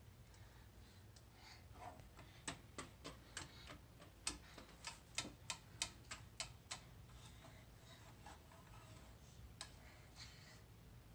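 Light, sharp clicks of a small utensil against a plate, two or three a second for several seconds, then a few scattered ones, as chocolate chips are picked from it. A faint low hum sits underneath.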